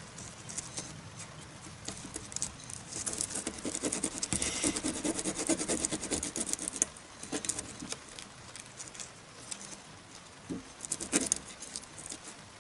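Scratchy rasping of a small wooden model part being rubbed on sandpaper, in uneven strokes that are densest a few seconds in, with a sharp tap near the end.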